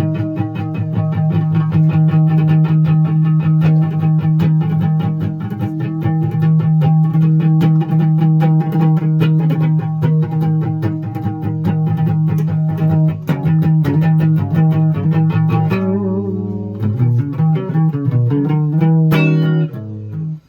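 Guitar music: quick, repeated plucked notes over a steady low note. The pattern changes about 16 seconds in and breaks off briefly near the end.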